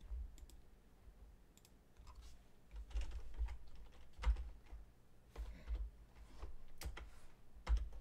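Computer keyboard typing and mouse clicks: irregular single key taps and clicks, some with a dull low thump, with several clustered near the end.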